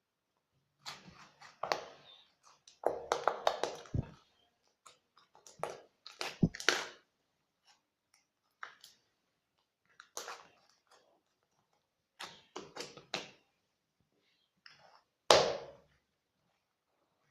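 Slime being squeezed and poked by hand: irregular clusters of wet clicks, pops and crackles with short pauses between them. The loudest pop comes near the end.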